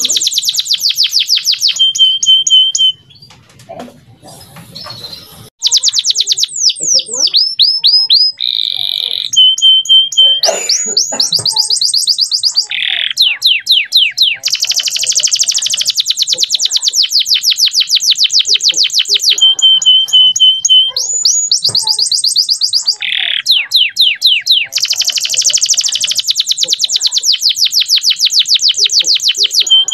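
Male canary singing: fast trills of rapidly repeated high, sweeping notes, broken now and then by short held whistle notes. The song pauses for about two and a half seconds near the start.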